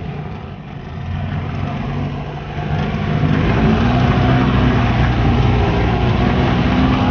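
Car engine running as the car pulls away, growing louder about three seconds in and then holding steady.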